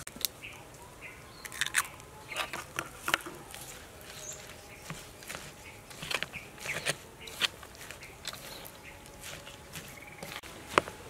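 Metal spoon stirring wet wonton filling of ground pork, raw egg and shredded vegetables in a metal bowl: irregular squelches and light clinks of the spoon against the bowl.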